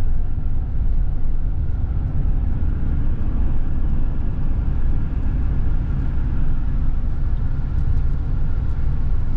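Steady low rumble of a truck's engine and tyres at highway speed, heard from inside the cab.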